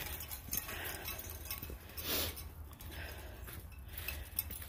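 Footsteps crunching through dry fallen leaves on a trail, with the light jingle of dog collar tags; one louder rustle about two seconds in.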